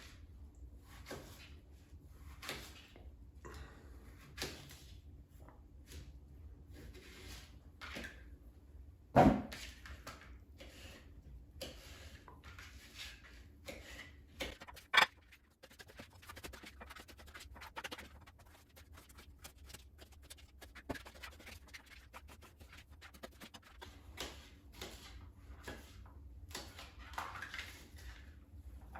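Knife slicing pears on a cutting board: irregular soft chops and taps, with two louder knocks about nine and fifteen seconds in.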